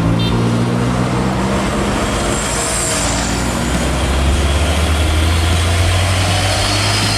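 Truck engine running, a low steady rumble that settles into a deeper drone about four seconds in.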